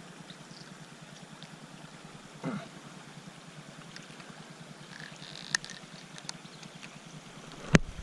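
Shallow river flowing steadily over riffles, with a brief pitched cry about two and a half seconds in and a sharp click near the end.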